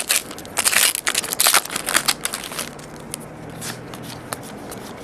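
Foil wrapper of a Topps Star Wars Galaxy 7 trading-card pack crinkling as the cards are pulled out, loudest and densest in the first two seconds. Then come softer, sparse ticks of the cards being slid and flipped through by hand.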